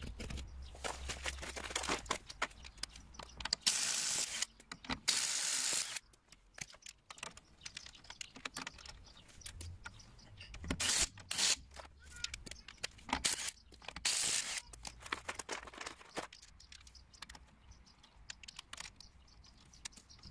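A cordless impact wrench runs in short bursts on the wheel bolts of a Mk1 Ford Fiesta's alloy wheel. The loudest bursts come about four and five seconds in, with another near the middle. Between them are sharp metallic clinks of sockets and bolts being handled.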